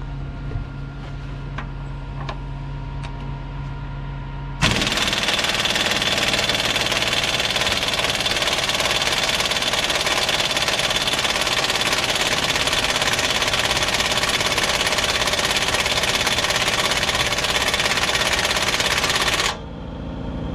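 Heavy-equipment diesel engine running steadily, then opened up to a loud, hard-working run about four and a half seconds in, held for about fifteen seconds, and dropping back near the end.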